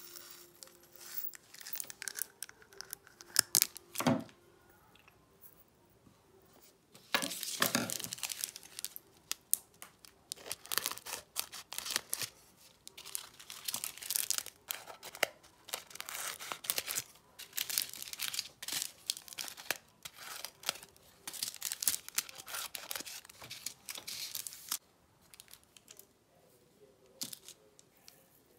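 Diamond painting drills being poured from small plastic bags into a small glass jar: the crinkle of the bags and the rattle of the tiny resin drills, coming in repeated bursts. A few sharp knocks about four seconds in.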